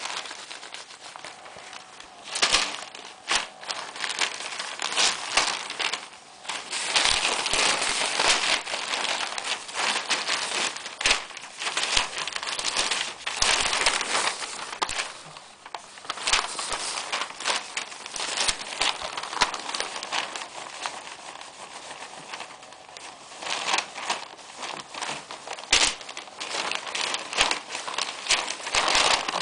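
Newspaper sheets rustling and crinkling as they are moved about on the floor and pawed at, in irregular bursts with many sharp crackles.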